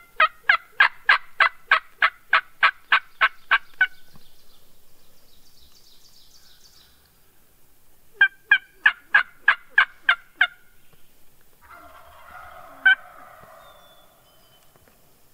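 Turkey yelps: a long, even run of about fourteen notes at roughly three a second, then a second run of about eight, and a lone note a few seconds later.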